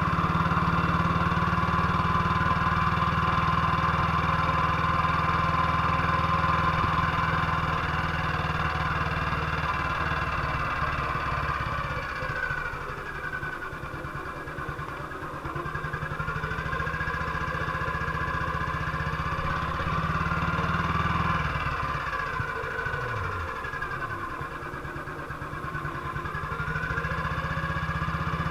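BSA C12 motorcycle's 250 cc single-cylinder engine running steadily under way, its revs dropping and picking up again a few times.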